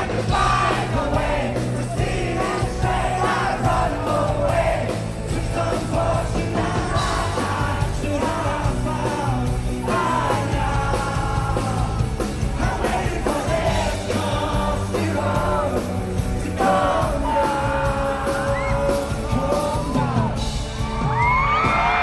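Live rock performance: a male singer with band accompaniment, with audience yells and cheers mixed in, heard from within the crowd.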